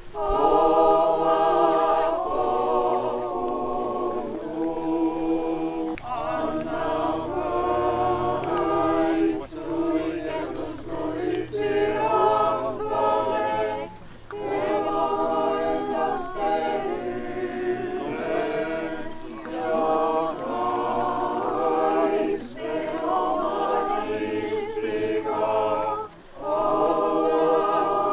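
Choir singing an unaccompanied Orthodox liturgical hymn in several voice parts, in phrases of a few seconds with short breaks for breath between them.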